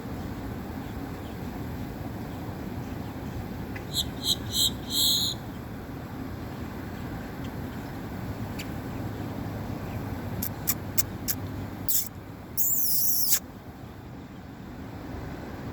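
Great-tailed grackle calling: a quick run of loud, high, ringing notes about four seconds in, a series of sharp dry clicks a few seconds later, then a loud, high, wavering whistle near the end, over a steady low background rumble.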